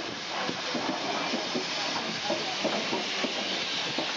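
BR Standard Class 4 2-6-4T steam tank locomotive hissing steadily with escaping steam, with faint chatter of people in the background.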